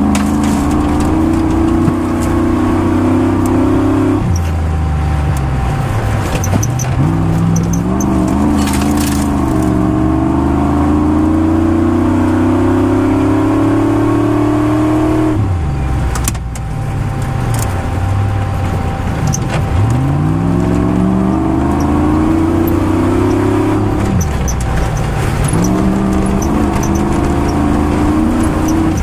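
Rally car engine heard from inside the cabin under hard driving, its pitch climbing as it accelerates and falling away sharply as the driver lifts off, about four seconds in, about halfway through and again near the end. Occasional knocks and rattles come from the car.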